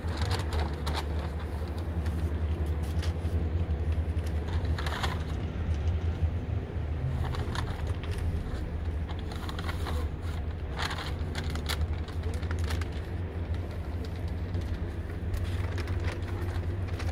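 A steady low hum, with scattered crackling rustles of paper evidence bags and a plastic bag being handled.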